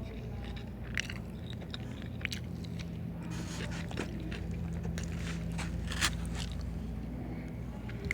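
Close-miked eating: a person chewing and biting food, with scattered wet mouth clicks and small crunches, the sharpest about six seconds in, over a low steady hum.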